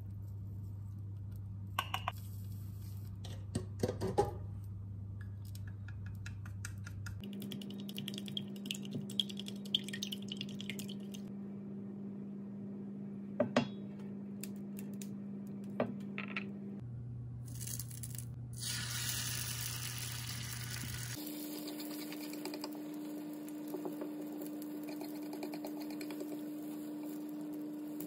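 Chopsticks clicking against a ceramic bowl and pan as eggs are beaten and the pan is readied. About two-thirds of the way in, beaten egg starts sizzling in a hot rectangular tamagoyaki pan. A steady low electric hum runs underneath and jumps in pitch a few times.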